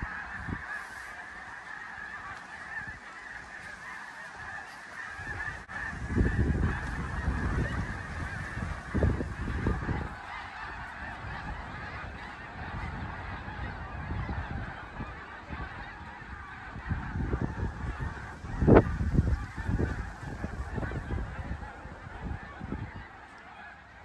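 A huge flock of snow geese calling in flight overhead, a continuous din of many voices. Low buffeting rumbles come and go over it, the strongest about three-quarters of the way through.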